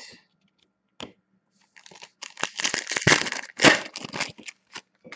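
Foil trading-card pack wrapper being torn open and crinkled, a dense crackling rush in the middle lasting about two and a half seconds. A few short clicks of cards being handled come before and after it.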